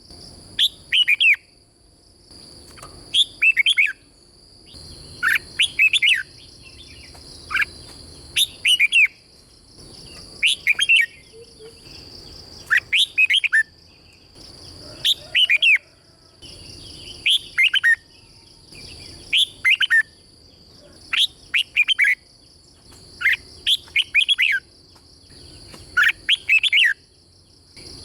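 Red-whiskered bulbul singing short, quick whistled phrases, repeated about every two seconds, over a faint steady high-pitched background tone.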